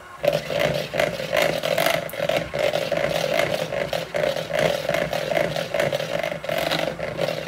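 Electric hand mixer running at a steady speed, creaming butter and cream cheese, with the beaters knocking irregularly against the bowl. It starts up a moment after the beginning after a short pause.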